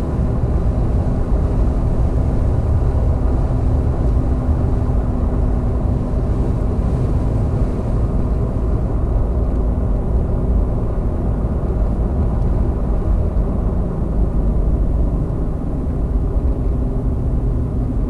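Vehicle driving along a road: a steady low rumble of engine and road noise, with a faint steady hum that fades out about halfway through.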